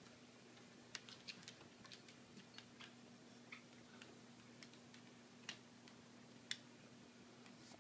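Faint, irregular clicks of a miniature schnauzer's claws on a hardwood floor as it steps about, over a faint steady hum.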